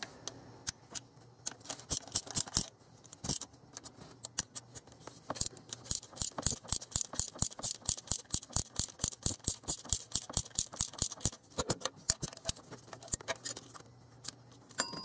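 Hand socket ratchet clicking in quick repeated strokes, several clicks a second with short pauses, as the water pump bolts are turned a little at a time to draw the pump evenly into its housing.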